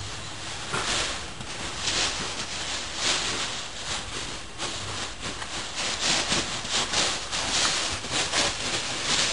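Fabric of a large beanbag cushion rustling and scraping in irregular bursts as a dog paws, digs and turns around on it, the filling shifting under its weight.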